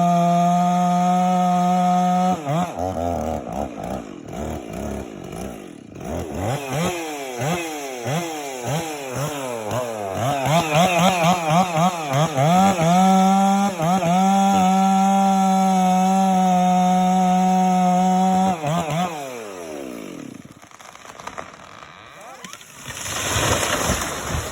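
Chainsaw cutting into a Douglas fir trunk, held at full throttle, then revved up and down in quick pulses for several seconds before going back to steady full throttle. It drops to idle about nineteen seconds in, and a short burst of rushing noise rises near the end.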